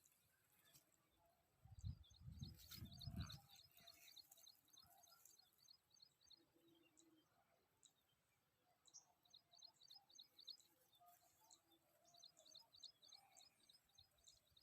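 Faint birds chirping outdoors: quick runs of high, evenly repeated chirps in three bouts. A few low thumps come about two to three seconds in.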